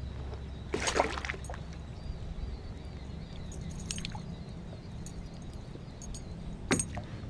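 Water splashing and sloshing against a kayak, loudest about a second in and again briefly around the middle, with a sharp knock near the end, over a steady low hum.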